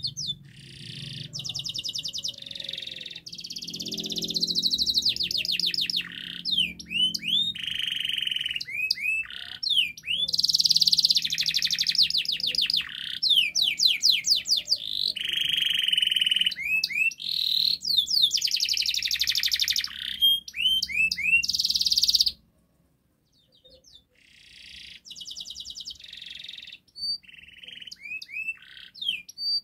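Domestic canary singing a long, fast song of rapid trills and rising sweeps. The song cuts off abruptly about two-thirds of the way through, then starts again more quietly.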